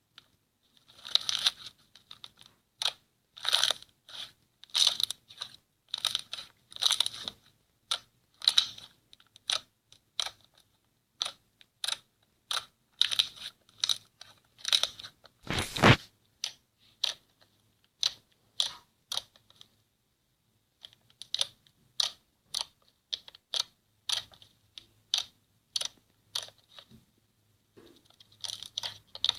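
Crunchy slime being squeezed and pressed, crackling in a run of short crunches about one to two a second. One heavier, deeper crunch comes about halfway through.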